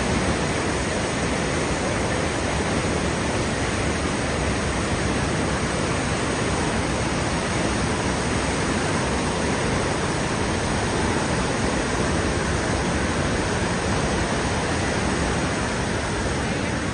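Steady roar of Niagara Falls: an even, unbroken rush of falling water.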